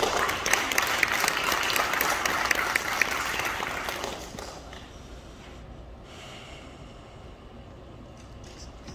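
Audience applauding, strong at first and dying away about four to five seconds in.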